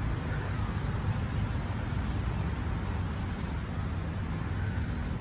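Steady low rumble of outdoor city-park ambience, with an even hiss over it and no distinct events.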